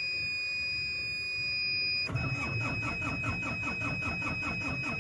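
BAW Fenix dump truck's diesel engine being cranked by the starter in freezing weather, turning over in a rapid, even pulse of about six or seven strokes a second without catching: a cold start that fails. A steady high-pitched dashboard warning tone sounds throughout, and the cranking begins about two seconds in.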